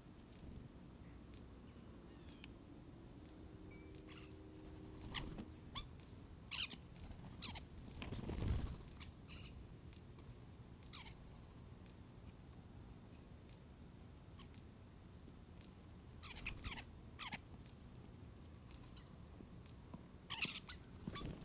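Scattered short, high bird chirps and squeaks in small clusters over a faint steady background, with a brief rustle about eight seconds in. A louder cluster of calls comes near the end as European starlings land.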